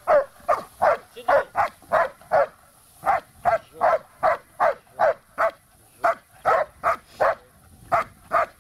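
Dog barking in a steady, rapid run of about two or three barks a second, with a short break about two and a half seconds in. It is guard barking at a man with a bite sleeve, given on the 'stranger' command.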